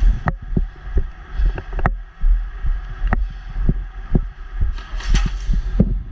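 Wind buffeting the microphone in an uneven low rumble, with sharp clicks and knocks scattered irregularly through it.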